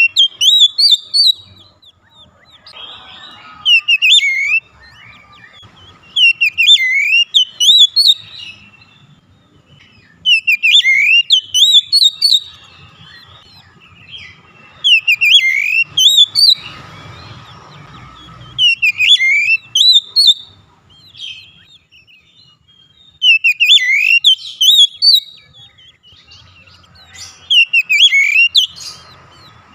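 Oriental magpie-robin (kacer) song: loud phrases of clear, sharp notes sweeping up and down, each lasting a second or two and repeating about every four seconds with short pauses between them. This is the full, vigorous (gacor) song that such recordings use to provoke a quiet bird into singing.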